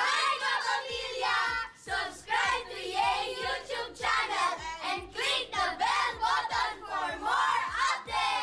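A group of children singing and shouting together in chorus over music.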